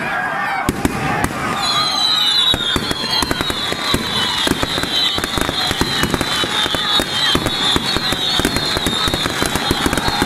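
Firecrackers going off in a dense, continuous crackle of rapid irregular bangs, with crowd voices underneath. From about two seconds in, a high whistling tone with slight falling glides runs over the crackle.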